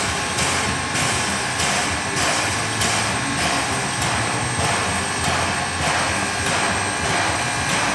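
1913 0-4-0 saddle-tank steam locomotive under steam, giving a regular beat of hissing steam puffs a little under two a second over a continuous steam hiss.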